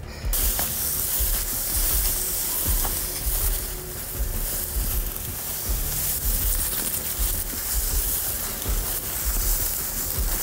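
Steady hissing rustle of dry grass and brush against a handheld microphone moving through it at pace, with irregular low thuds of footsteps and handling.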